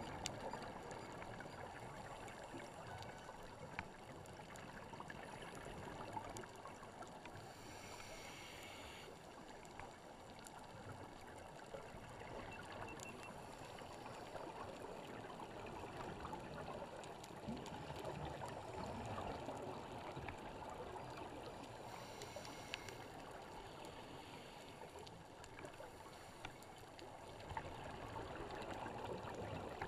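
Underwater sound on a coral reef heard through a camera's waterproof housing: a faint, steady muffled rush of water dotted with scattered small clicks, and a brief hiss twice, about eight and twenty-two seconds in.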